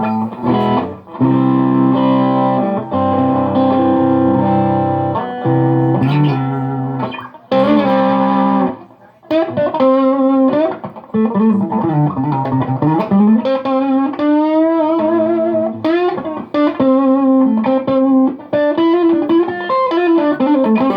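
Chibson SG electric guitar played through an amp. Held, ringing chords for about the first eight seconds, then a single-note melody with vibrato and string bends.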